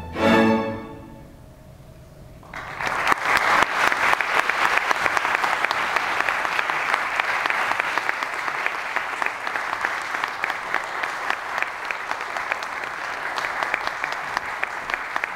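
A string orchestra's last chord, cut off about half a second in and left to ring away into a brief hush. An audience then starts applauding about two and a half seconds in and keeps clapping steadily.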